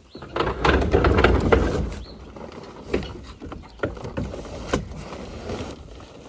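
An empty plastic barrel being handled and dragged: a loud scraping rush for a second or two, then several hollow knocks and clunks.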